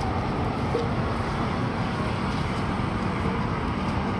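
Steady city traffic noise, an even rush of passing road vehicles.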